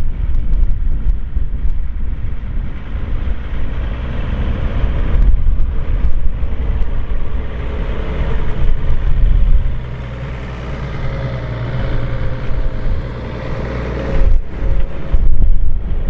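A Deutz-Fahr Agrotron 150 tractor's six-cylinder diesel running under load as it pulls a four-furrow plough through the soil. The engine note settles into a steadier hum from about ten seconds in.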